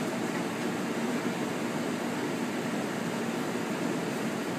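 Steady fan-like hum of commercial kitchen machinery, with no clatter or knocks.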